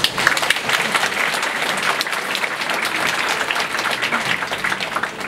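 A crowd applauding, many hands clapping densely; it starts suddenly and thins out a little near the end.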